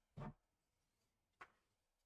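Near silence, broken by a faint short thump just after the start and a small click about a second and a half in: handling of PC parts during assembly.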